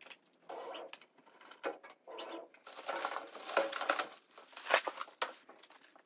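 Plastic packaging rustling and crinkling in irregular bursts as wrapped parts are handled and lifted out of a laser cutter, with a few sharp knocks about three quarters of the way through.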